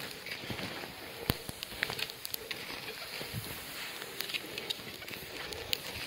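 Freezing rain ticking irregularly on the camera and clothing over a steady hiss, while someone walks on snow.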